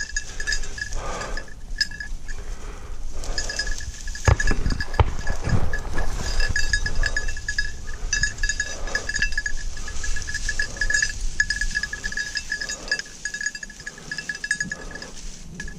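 Small bell on a bird dog's collar jingling continuously as the dog moves quickly through cover, searching for a bird. Scattered low thumps and rustling of movement through brush a few seconds in.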